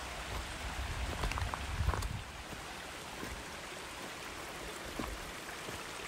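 Mountain stream rushing steadily, with a few low bumps and faint clicks in the first two seconds.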